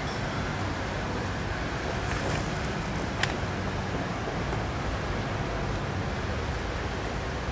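Steady street noise with a low traffic rumble and no engine note, and one short sharp click about three seconds in.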